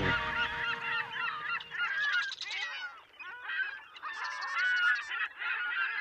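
A flock of geese honking, many calls overlapping.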